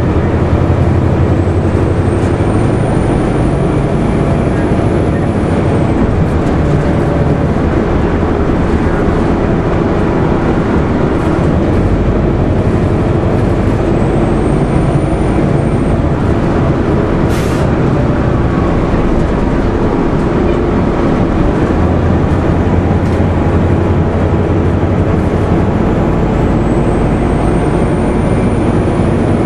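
A 2001 Nova Bus RTS-06 transit bus running, heard from inside: its Detroit Diesel Series 50 inline-four diesel and ZF automatic transmission make a steady loud drone with a low hum that swells at the start and again near the end. A faint high whine rises three times, and a short hiss of air comes a little past halfway.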